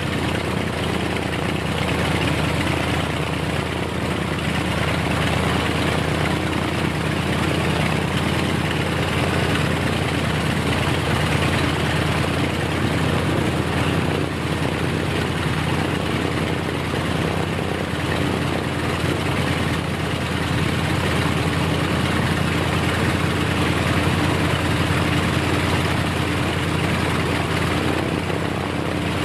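Aircraft engine sound running steadily at one speed, the engine run of a scale model Grumman Tracker with its propeller turning.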